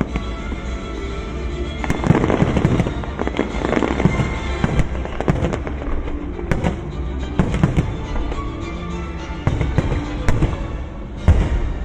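Fireworks display: repeated bangs and crackling bursts, some single and some in quick clusters, over music playing.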